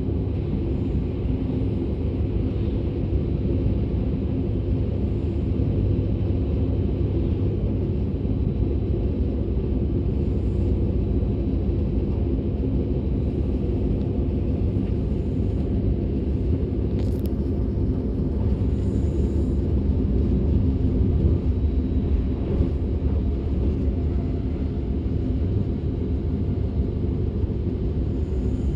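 DB Class 425 electric multiple unit running at speed, heard from inside the passenger compartment: a steady low rumble of wheels on track, with a faint steady drone above it.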